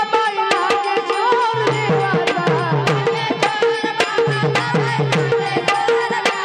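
Marathi devotional bhajan music: a tabla rhythm of quick, sharp strokes with falling bass strokes, under a wavering melody line and held drone tones.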